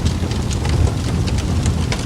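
Wood fire crackling in a fireplace: a steady low rumble with frequent small sharp pops and crackles.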